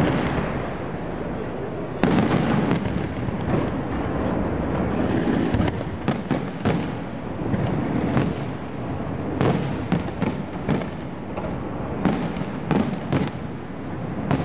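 Aerial fireworks display going off: a steady rumble of bursts with a loud boom about two seconds in, then clusters of sharp cracks and bangs in quick succession.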